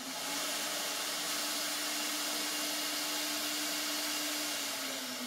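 Air-cooled spindle of a WISYS CNC router spinning freely at speed, a steady whine over a loud rush of cooling air, the noise typical of an air-cooled spindle. Near the end the whine begins to fall as the spindle winds down.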